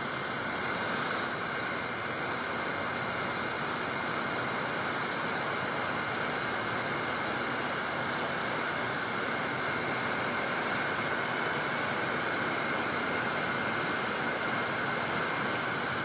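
Wagner heat gun running on its high setting: a steady rushing hiss of its fan blowing hot air.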